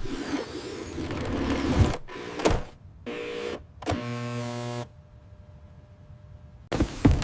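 Robot vacuum's electric motor whirring, then a steady buzzing hum that cuts off about five seconds in.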